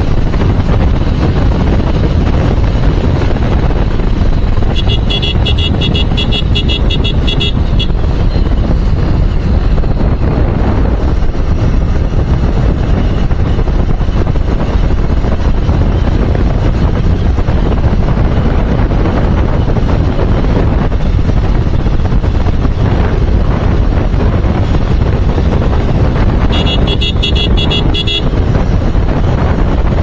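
Yamaha motorcycle running at road speed with wind rushing over the microphone, a steady loud noise. A horn sounds in rapid pulsing beeps twice: about five seconds in for some three seconds, and again near the end for about a second and a half.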